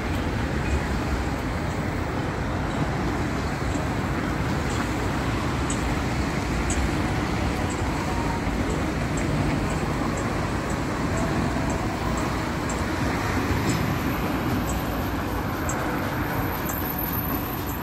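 Steady city street traffic: cars driving past on a multi-lane road, a continuous noise of tyres and engines.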